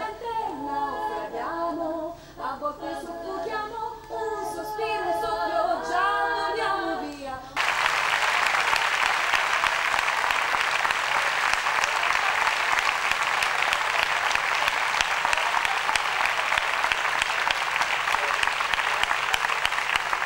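A few voices singing together a cappella for about seven seconds, then a sudden switch to long, steady applause from an audience, which is the loudest part.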